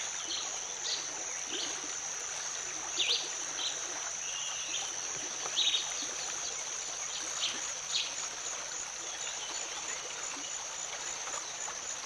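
Shallow rainforest stream running over stones, with a steady high insect drone and a dozen or so brief high chirps scattered through.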